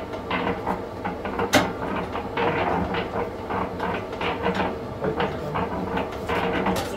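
800 W Procraft electric concrete mixer running, the drum's ring gear and pinion clattering over a steady motor hum, with one sharp knock about a second and a half in.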